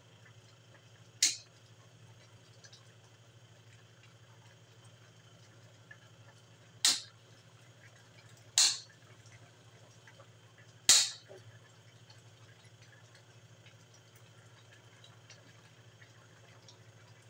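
Metal ladle clinking against an aluminium wok four times while stirring a coconut-milk stew, each clink sharp and briefly ringing, over a faint steady low hum.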